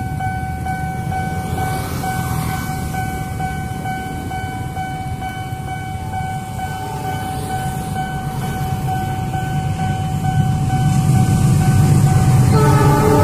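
Level-crossing warning signal sounding a steady high tone over a low rumble that grows louder in the last few seconds as a KRL electric commuter train approaches. Near the end the train's horn starts to blow.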